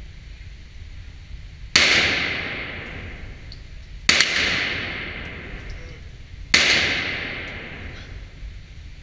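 Glock pistol fired three times, roughly two and a half seconds apart, each shot followed by a long echo dying away in an indoor shooting range.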